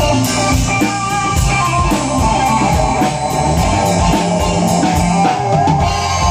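Loud band music with a steady drum beat under a sustained melody, played at a band's sound check.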